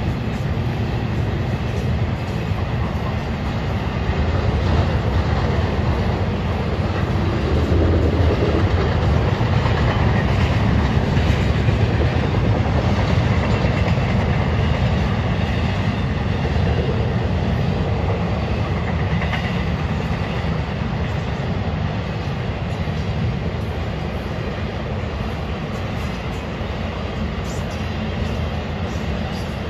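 Florida East Coast Railway intermodal freight train's cars rolling across a steel girder bridge, a steady low rumble of wheels on rail that eases slightly toward the end.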